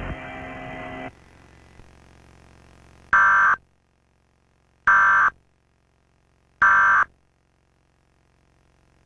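Emergency Alert System end-of-message signal, pitched down: three short, loud, buzzy bursts of digital data tones, each about half a second long, about a second and a half apart.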